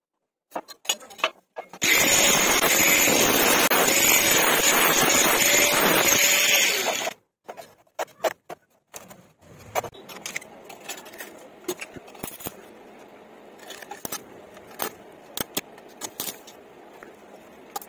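Angle grinder cutting square iron tube for about five seconds, stopping abruptly. After a few handling clicks, a much quieter stick-welding arc crackles and spits while the mitred corner is tack welded.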